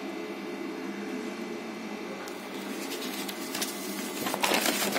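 Pen writing on paper with light scratching, then a loud rustle of paper near the end as a page is turned over.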